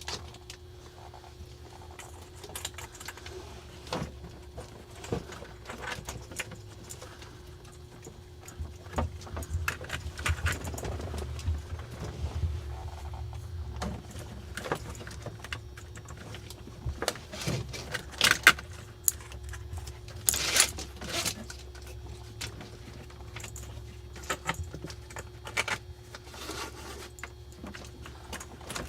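Handling noise: irregular clicks, rattles and scrapes as wire leads and small parts are worked by hand, with a couple of louder knocks about two-thirds of the way through, over a faint steady hum.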